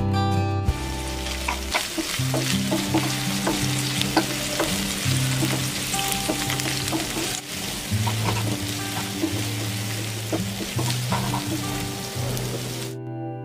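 Sliced onions and chopped tomato frying in hot oil in a nonstick pan, sizzling steadily, while a wooden spatula stirs them with frequent light clicks and scrapes against the pan. The sizzling starts about a second in and cuts off shortly before the end.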